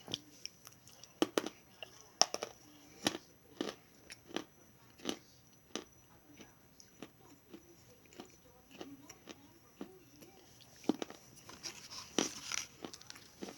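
Close-up crunching and chewing of something hard and crunchy: sharp crunches about every half second to second, loudest in the first few seconds, softer chewing in the middle, and a quicker cluster of crunches near the end.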